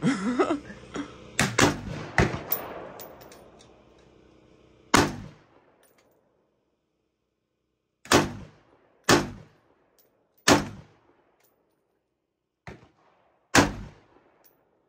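Gunshots from a firearm at a range: a quick cluster of shots about one and a half to two and a half seconds in, then single shots one to three seconds apart, one of them fainter.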